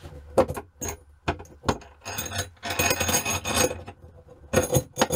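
Small metal hardware (steel nuts and fender washers on a threaded steel rod) clicking and clinking, with a stretch of scraping and rubbing in the middle as the parts are handled and worked on the rod.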